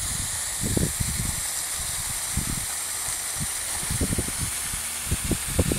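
Steady hiss of water running from a garden hose onto a wet plastic-tarp slip-and-slide, with a few dull low thumps as a child steps onto the tarp and slides down it.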